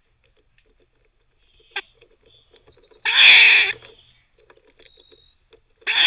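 Eastern gray squirrel barking twice: harsh, drawn-out calls under a second long, about three seconds apart, the second starting near the end. Between the calls there is faint scratchy gnawing as it chews on a chew while teething.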